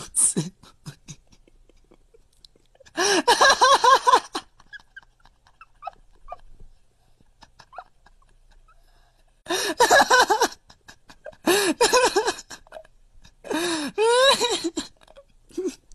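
Tabby cat making rapid runs of short, high-pitched calls in four bursts of about a second each, with quiet pauses between.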